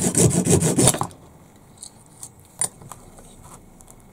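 Fine-toothed hand saw cutting through a yellow plastic part held in a vice: fast, short rasping strokes that stop about a second in. Then a few light clicks and taps as the cut plastic part is handled.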